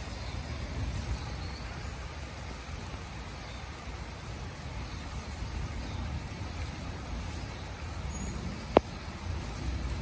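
Steady rain falling outdoors, an even patter with a low rumble under it, and a single sharp click near the end.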